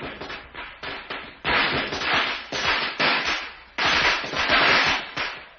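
A string of Chinese New Year firecrackers going off in dense, rapid crackling that swells and eases several times.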